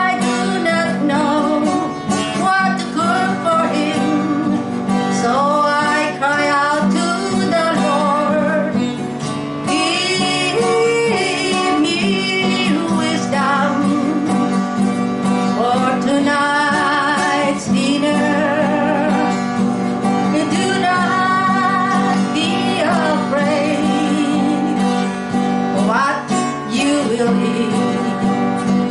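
A woman singing, accompanying herself on a strummed acoustic guitar.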